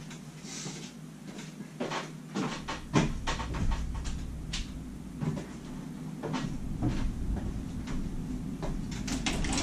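Knocks and clatter of a door being opened to let air into the workshop, with a low steady hum coming in about two and a half seconds in.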